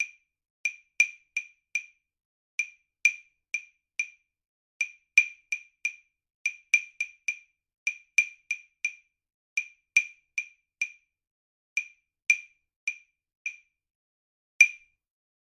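Woodblock percussion playing a repeating 5/8 rhythm of short dry clicks in groups, the tempo slowing and speeding up, a ritardando and accelerando to be followed by ear. It ends on a single accented click, the loudest of all, about a second before the end.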